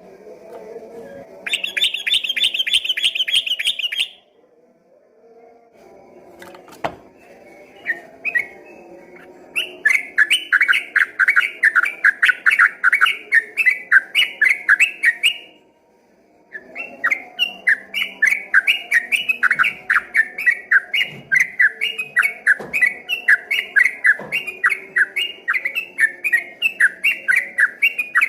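Yellow-vented bulbul (trucukan) singing its ropel: long runs of rapidly repeated chattering notes, about four a second, broken by a short pause. A brief fast high trill comes near the start.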